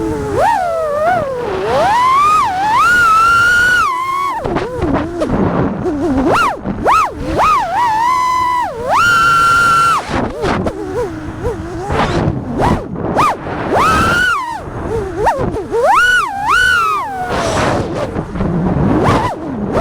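A 5-inch FPV freestyle quadcopter's four Axisflying 2207 1860KV brushless motors and props whining. The pitch swoops up and down quickly as the throttle changes, and holds steady briefly about nine seconds in.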